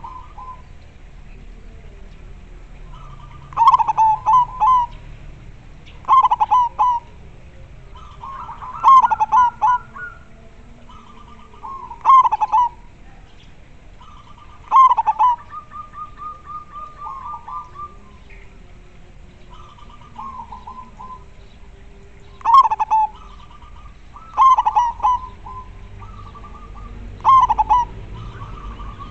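Zebra dove (perkutut) singing: a rapid, stuttering cooing phrase repeated about eight times, every two to three seconds, with a longer pause past the middle. Fainter cooing phrases come between the loud ones.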